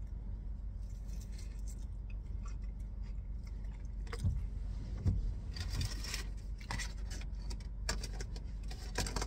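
A bite and chewing of a taco filled with crispy fried avocado: short crunches and crinkly crackles, clustered from about four seconds in, over a steady low hum.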